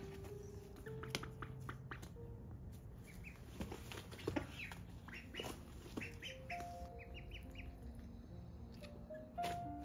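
Ducklings peeping and ducks calling softly, with a run of short high peeps around six to seven seconds in and a few light clicks, over soft background music with held notes.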